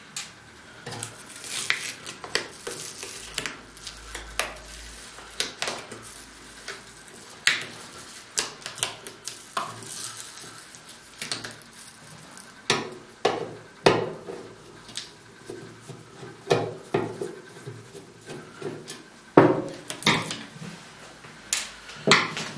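Small screws and a screwdriver clicking and clinking against a heat press's metal housing as the screws holding its motherboard are taken out. Irregular sharp clicks and clatters go on throughout, with a few louder knocks in the second half.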